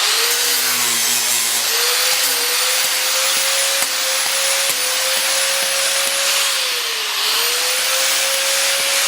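Angle grinder switched on and running at full speed with a steady, high motor whine. Its pitch sags briefly about seven seconds in, as the motor is loaded, then recovers.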